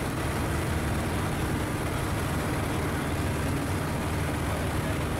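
Light aircraft engine and propeller running steadily on a landing approach, a low, even drone.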